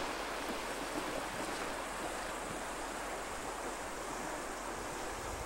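Steady rush of whitewater pouring over and around boulders in a shallow river rapid.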